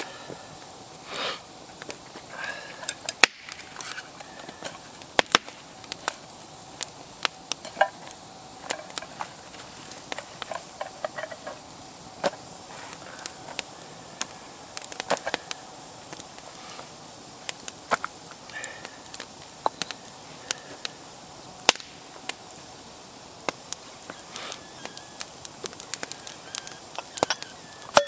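Wood campfire crackling: irregular sharp pops and snaps over a faint steady hiss, the loudest pop about three seconds in.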